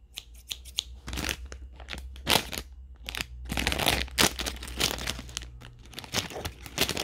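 Crinkly plastic food wrapper being handled and cut open with scissors, in irregular rustles and snips. The loudest bursts come a little past two seconds and again around four seconds.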